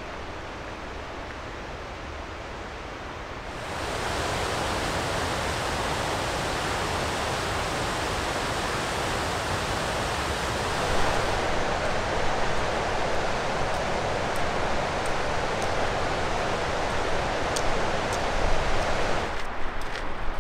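Whitewater of a mountain creek rushing over boulders in a steady, loud rush. It starts abruptly a few seconds in and cuts off abruptly about a second before the end, with quieter steady noise on either side.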